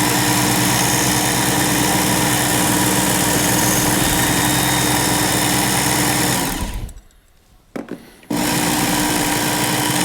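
Work Sharp Ken Onion electric belt knife and tool sharpener running steadily at slow speed, sharpening a treble hook. About two-thirds of the way through it winds down and stops, and about a second and a half later it starts up again abruptly.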